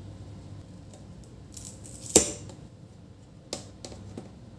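A laptop LCD panel being handled and pressed into its lid by hand: a few light clicks and rustles, the loudest about two seconds in, over a faint low hum.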